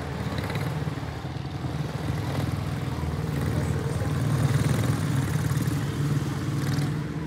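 A pack of quarter midget race cars with Briggs & Stratton Animal single-cylinder engines running at racing speed around the oval. The engines get louder as the cars pass close about four to five seconds in, then ease off as they move away.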